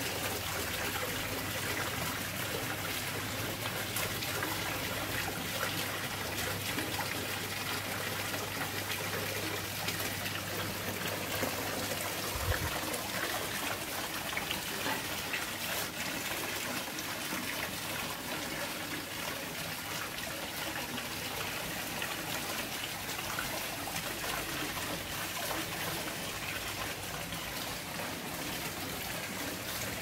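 Small garden waterfall splashing steadily down a stepped rock cascade into a fish pond, with one brief low bump about halfway through.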